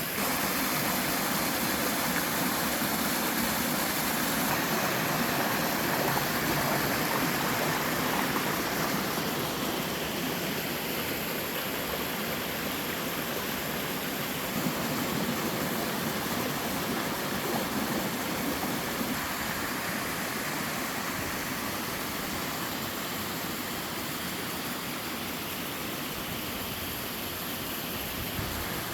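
Mountain stream pouring over a series of small waterfalls: a steady, dense rush of falling and splashing water.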